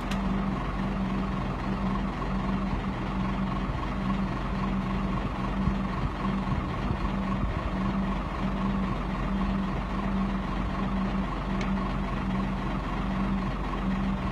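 Crane truck's engine running steadily to power the crane as it hoists a small boat on slings, a continuous hum with a low tone that wavers on and off.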